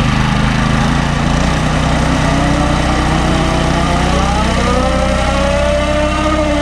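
Mini bike's small single-cylinder engine running at idle, then revved up with the bike standing still: its pitch climbs steadily over the last few seconds and starts to fall away at the very end.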